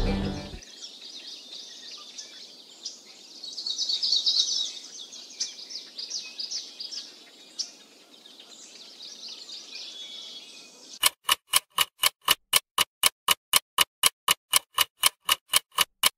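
Music cuts off, leaving faint high chirping like small birds, louder for a moment about four seconds in. About eleven seconds in, a loud, even ticking starts, about four sharp ticks a second, like a clock.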